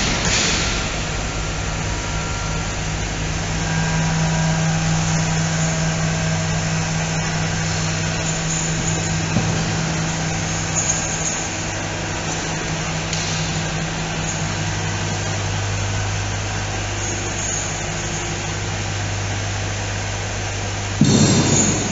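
Steady low hum of running factory machinery, with two steady low tones held throughout. A brief louder noise comes near the end.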